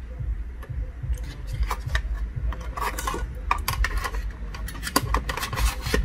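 Metal SSD drive bracket clinking, tapping and scraping against the aluminium case of an Intel NUC mini PC as it is handled and fitted: an irregular string of sharp clicks and short rubs over a low steady hum.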